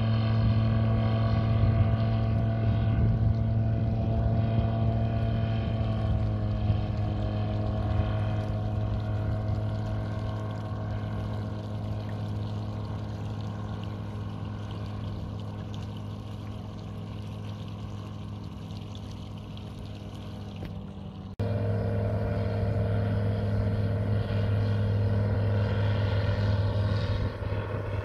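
Light seaplane's propeller engine running at full power in a steady drone as it takes off from the water and climbs away, growing gradually fainter, with its pitch rising slightly about six seconds in. About three quarters of the way through, the drone jumps suddenly back to a louder level and stays steady.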